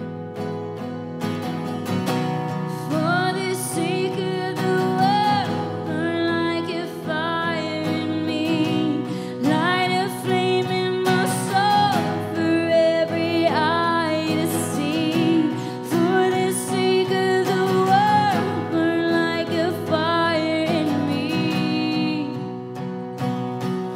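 A woman singing a worship song to her own strummed acoustic guitar. The guitar plays alone at first, and the voice comes in about three seconds in.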